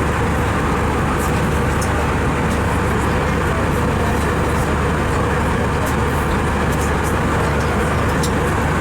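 Steady cabin noise of an Airbus A320: the even rush of its jet engines and air, with a few faint clicks.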